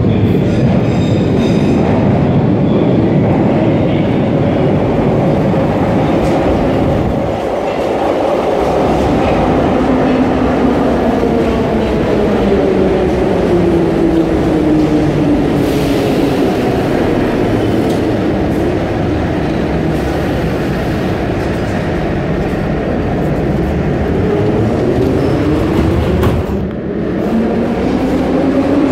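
An old metro train pulling into an underground station, its wheels clattering and motors running loudly. Its whine falls in pitch as the train slows, and a rising whine comes in near the end.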